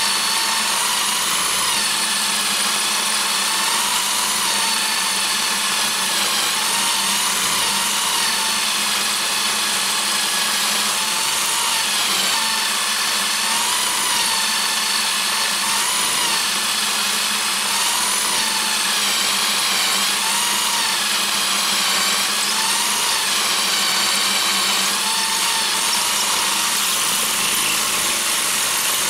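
Electric power drill motor whining steadily as it drives a 6 mm twist drill, held in a collet-chuck toolpost drill, through a 316 stainless steel bar. The pitch of the whine dips and recovers again and again as the bit is fed in and the motor takes the load.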